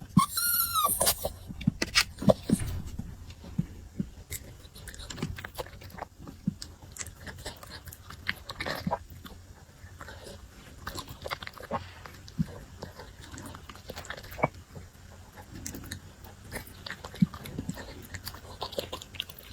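A puppy eating pork rib soup up close: irregular wet chewing, biting and lapping. It opens with one short, high-pitched whine.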